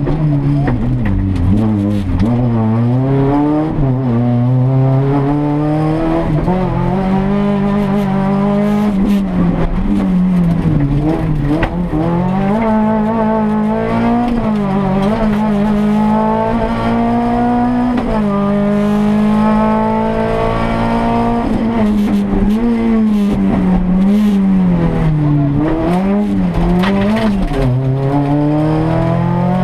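Engine of a Renault Mégane class A7 rally car heard from inside the cabin at full stage pace. It revs hard, its pitch climbing through each gear and falling back on every shift and lift, over and over without a break.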